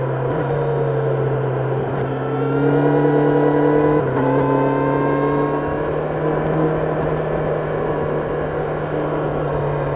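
Kawasaki Ninja 1000SX's inline-four engine heard on board while riding: it climbs in revs under acceleration, drops sharply at a gear change about four seconds in, then pulls again and settles at a steadier speed, with wind noise underneath.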